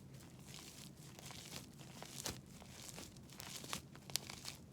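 Sticky slime with shaving cream mixed in being kneaded by hand, making irregular small clicks and crackly pops, a few of them louder about two and four seconds in.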